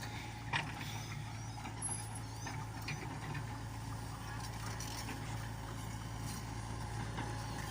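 Komatsu PC70-8 excavator's diesel engine running steadily with a constant low hum, with a few short clicks and knocks from the machine at work.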